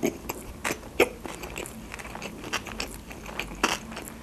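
Close-miked chewing of a sushi roll coated in fish roe: wet mouth sounds with irregular crunches and clicks, the loudest about a second in and near the end.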